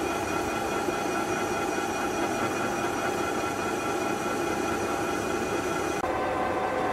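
SHW RH 50/12 centre lathe running, its headstock gearing giving a steady whine of several tones over mechanical noise. The whine changes pitch about six seconds in.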